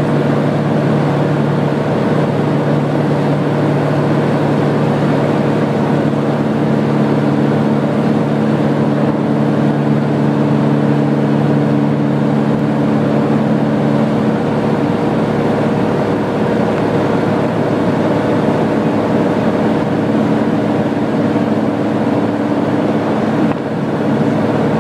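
Cabin drone of a light aircraft in cruise flight: the engine and propeller running steadily, with a constant hum over a rushing noise. The pitch of the hum shifts a little partway through.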